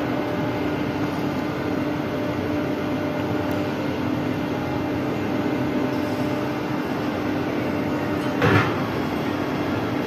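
Steady hum of a drop-tower ride's lift drive running with a constant low tone while the seat carriage is raised up the tower. A short, louder sound comes about eight and a half seconds in.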